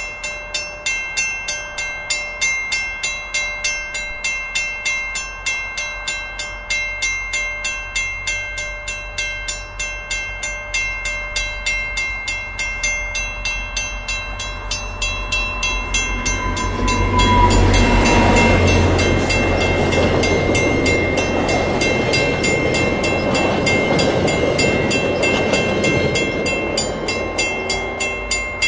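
Level-crossing bell ringing rapidly and steadily while an EMD F40PH-2D diesel locomotive, with its 16-cylinder two-stroke engine, runs past pulling passenger cars. The engine and the rolling wheels build up to a loud pass a little after halfway, then the cars rumble by and fade, leaving the bell ringing.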